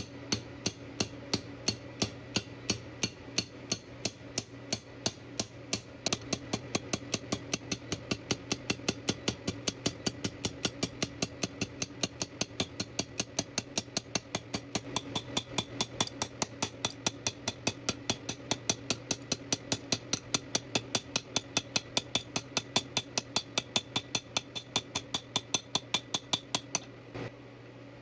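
Hammer blows forging a taper into a metal tube, struck in a fast, even rhythm of ringing metal-on-metal impacts that quickens about six seconds in and stops shortly before the end. A steady low hum runs underneath.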